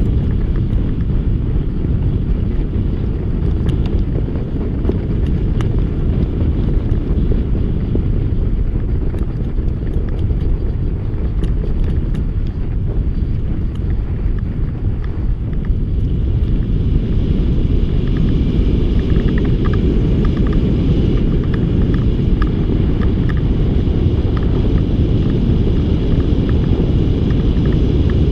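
Snow bike's engine running as it rides along a snowy trail, heard as a steady, muffled low rumble that grows a little louder about halfway through.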